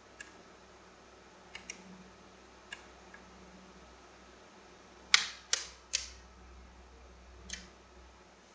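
Scattered sharp clicks, about nine in all, with the loudest three coming close together about five to six seconds in. They are the aux toggle switches on a Radiolink AT9 transmitter, rebuilt around an Arduino Uno, being flipped between positions.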